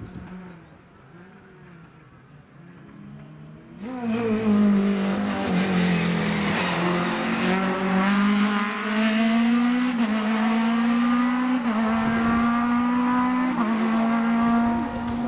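Rally car engine, faint at first, then loud from about four seconds in as the car comes through under hard acceleration. Its pitch climbs in each gear and drops back sharply at three upshifts.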